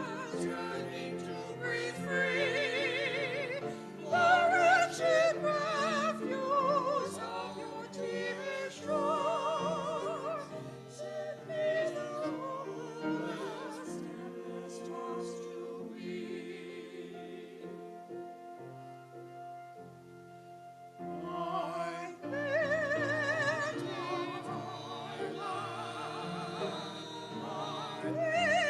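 A small mixed vocal quartet, two men and two women, singing with vibrato over piano accompaniment. The music drops softer for a few seconds about two-thirds of the way through, then swells again.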